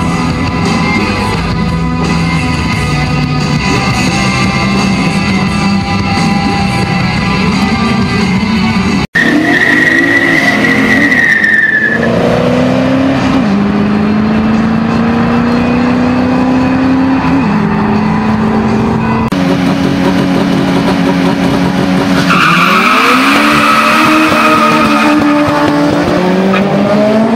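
Rock music plays for about the first nine seconds, then cuts to a drag-race launch. A high tyre squeal lasts about two seconds, then car engines accelerate hard, the pitch climbing and dropping back at each gear change. Near the end a second pair of cars launches with another tyre squeal and a rising engine note.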